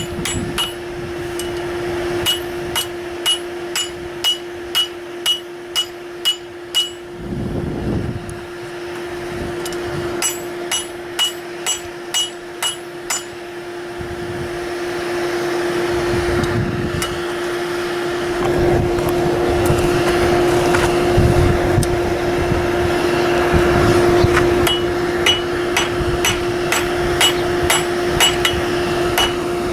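Hammer striking steel on an anvil, ringing blows at about two a second in runs with pauses between them, over a steady hum. A louder rushing noise rises in the middle stretch.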